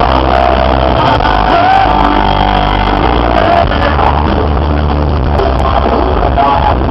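Loud rock music with a singing voice over a heavy, steady bass.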